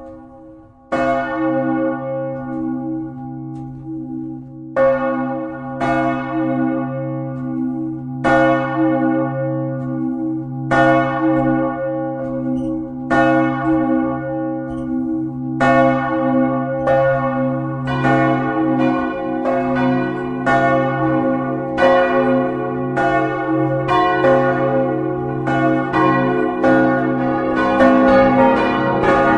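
Church bells being swing-rung (à la volée): the first bell starts striking about a second in and then sounds every two to two and a half seconds, each strike ringing on. From about eighteen seconds in, a second bell joins and the strikes come thicker and overlap.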